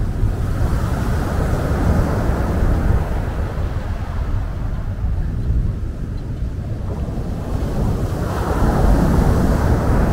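Sea waves breaking on a pebble beach and washing back over the stones. One surge comes in the first few seconds and a bigger one near the end, over a steady low rumble.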